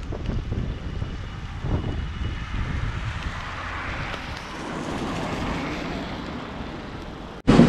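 Wind buffeting the microphone of a camera carried on a moving bicycle, a gusty rumble, with a broader hiss from bicycle tyres on the rain-wet path in the middle. The sound cuts out abruptly just before the end.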